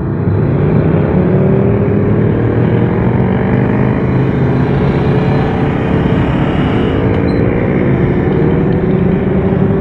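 Honda CBR500R's parallel-twin engine running under way, its note climbing slowly as the bike gains speed, over steady wind and road noise.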